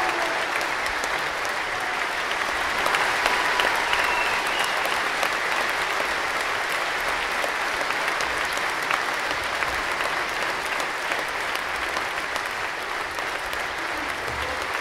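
Steady applause from an audience, dense clapping that goes on unbroken.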